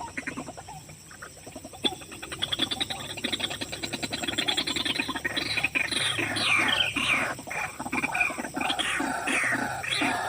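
White-breasted waterhens calling. A fast run of repeated notes builds about two seconds in, and through the second half loud falling calls repeat about twice a second.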